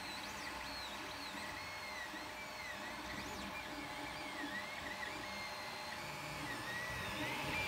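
Creality Ender-3 3D printer printing: its stepper motors whine in quick rising and falling tones as the print head moves back and forth, over a steady fan hum.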